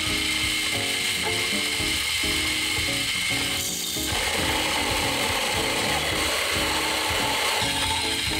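Electric coffee grinder running, grinding light-roast coffee beans at a medium-coarse setting: a steady gritty grinding noise that thins briefly about halfway through, then carries on.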